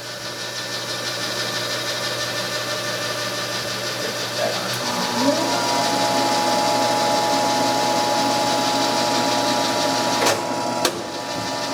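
Electric drive motor and gearbox of a welding positioner running steadily. The whine rises in pitch about five seconds in as the speed is turned up, then holds. Two sharp clicks come near the end.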